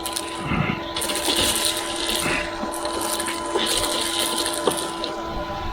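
Hard plastic parts clicking and rattling as they are handled in a car boot, with bursts of clatter about a second in and again near four seconds, over a steady hum.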